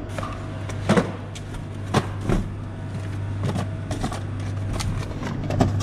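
Sharp knocks and clunks of an ice cream truck's side freezer compartment being opened and cardboard boxes of ice cream being handled on its shelves, about seven of them spread through, over a steady low hum.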